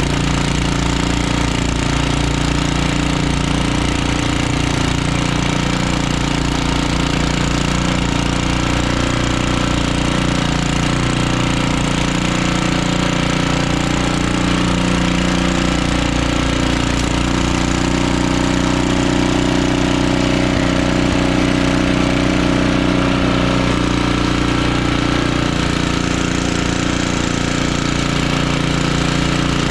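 1976 Ariens Sno-Thro snowblower's engine running steadily while clearing heavy, slushy wet snow, its pitch wavering a little partway through.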